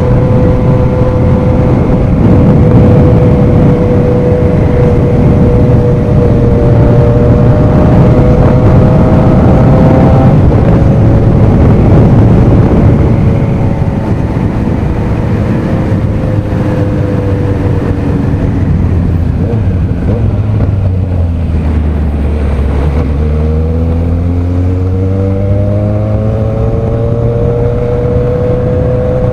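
Vehicle engine running hard at steady high revs for about the first half. Then the revs fall away. It accelerates again near the end, the pitch rising.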